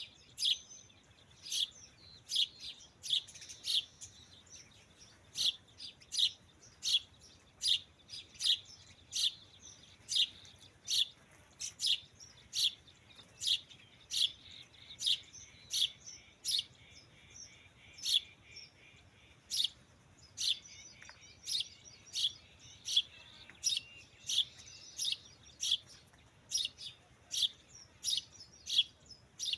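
A small bird chirping over and over, short sharp chirps at about one or two a second, with fainter twittering from other birds behind.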